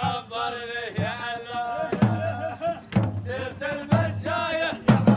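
Traditional Emirati folk performance: men singing and chanting together over hand-held frame drums and a double-headed barrel drum, a low drum stroke about once a second, the beats coming faster near the end.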